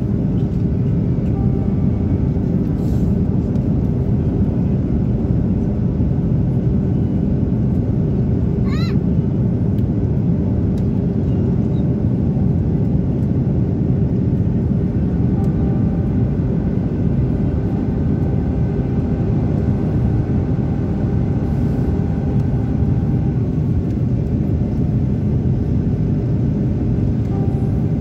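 Airbus A330 jet engines running in a loud, steady rumble, with a few faint steady tones above it. A short rising chirp sounds about nine seconds in.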